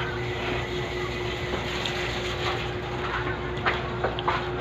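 Close-up eating sounds, a few short smacks and clicks from chewing and picking at fish and rice by hand, the loudest about three and a half to four seconds in, over a steady background hum.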